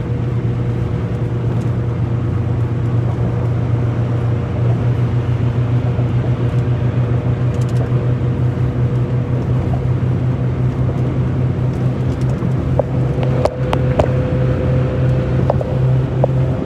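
Truck driving on the road: a steady engine and road drone with a constant low hum, and a few sharp clicks near the end.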